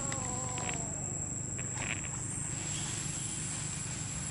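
Steady high-pitched insect drone over a steady low rumble, with a faint falling cry in the first second and a couple of brief rustles in dry leaf litter.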